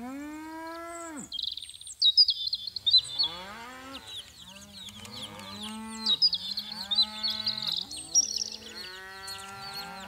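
A cappella voices imitating cattle lowing: long sliding moo calls, one at first and then several overlapping over a held low hum from about four seconds in. Quick high bird-like chirps and whistles run above them from about a second and a half in.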